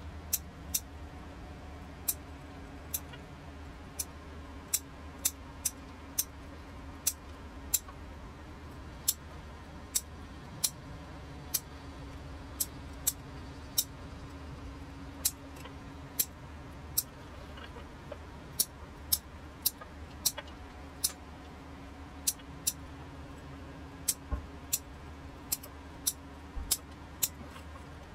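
Fine bonsai scissors snipping off the new shoots of a sekka hinoki bonsai, bud-cutting to shape its foliage pads: small sharp clicks at an uneven pace, about one or two a second, over a low steady hum.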